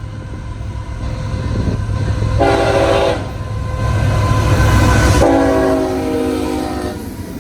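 Freight diesel locomotive sounding its multi-note air horn: a short blast, then a longer one about two seconds later, over the low rumble of the approaching engine.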